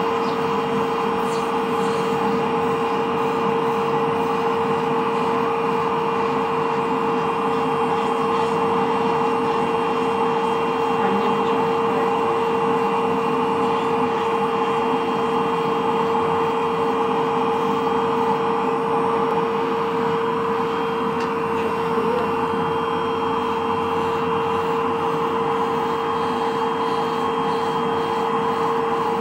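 PDV 40 podiatry drill with dust suction running steadily while its sanding bit grinds callus off a heel: a constant motor hum with one steady tone over an even airy suction noise.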